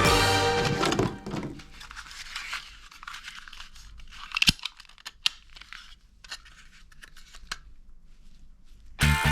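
Plastic being handled, with rustling and scattered small clicks and one sharp snap about four and a half seconds in. Background music fades out at the start and comes back near the end.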